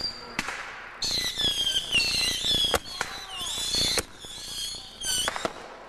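Whistling fireworks going off: several high, wavering whistles that sound together and then cut off at a sharp crack, with more cracks and pops near the end.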